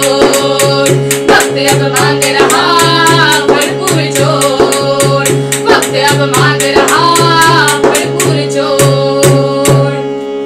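Two women singing a Hindi protest song over a sustained drone, to a steady beat struck by hand on a large drum.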